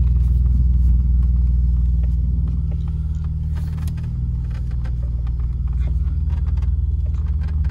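BMW E30 sedan on the move, heard from inside the cabin: a steady engine and road drone, with a few faint creaks and clicks from the interior trim, the pillar-trim squeak not yet fully cured.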